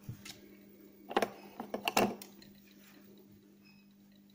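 Hands handling small fishing tackle (hook, monofilament line and a silicone stopper) make a few short clicks and rustles, the loudest cluster about a second to two seconds in. A steady low hum sits underneath.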